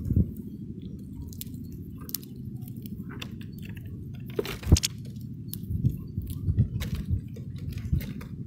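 Finches and a house sparrow pecking at and husking black sunflower seeds on a feeding board right beside the microphone: irregular clicks and crunches, the loudest a little under five seconds in, over a steady low rumble.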